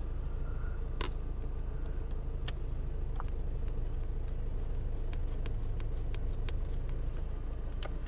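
Scattered light clicks of screws being driven back into plastic dash trim, over a steady low rumble.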